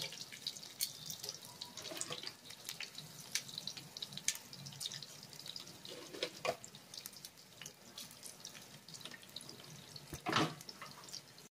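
Hot oil in a pan sizzling faintly, with scattered small pops and crackles, as a tempering of mustard seeds, cumin, dal, garlic and dried red chillies heats in it. A brief louder rustle comes about ten seconds in.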